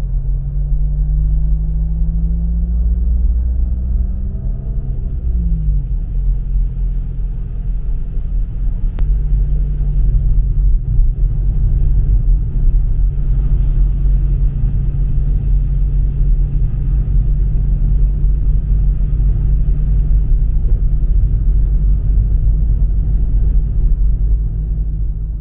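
Car engine and tyre noise heard inside the cabin while driving: a loud, steady low rumble with a droning engine note. The engine note climbs slowly, then drops sharply about five seconds in, and holds steady after that.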